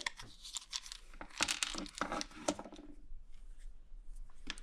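A small plastic bag crinkling as powder is tipped from it into a glass mug of water, with scattered light clicks and knocks.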